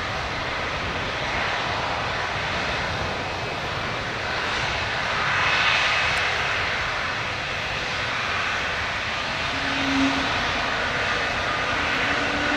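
Airbus A220-300's Pratt & Whitney PW1500G geared turbofan engines running at low taxi power, giving a steady jet noise that swells a little about halfway through.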